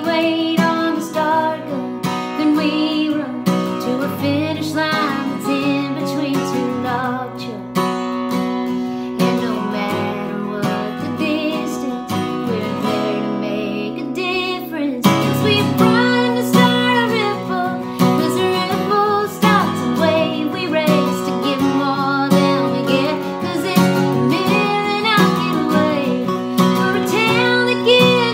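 Woman singing to her own strummed acoustic guitar.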